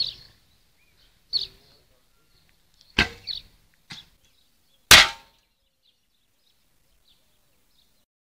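An arrow shot from a wooden bow: a few smaller clicks and knocks of handling the bow, then a sharp snap of the bowstring on release about five seconds in, the loudest sound, ringing briefly.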